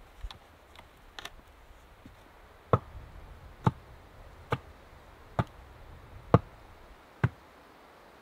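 An upright wooden stake is struck six times at a steady pace, about one sharp knock a second, as it is driven into the ground for the shelter frame. A few light taps come first.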